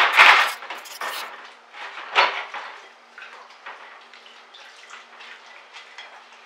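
A felt-tip marker scratching loudly across cardboard for the first half second, then dishes clinking and clattering as they are washed by hand in a kitchen sink, with one louder clatter about two seconds in and small knocks of crockery after it.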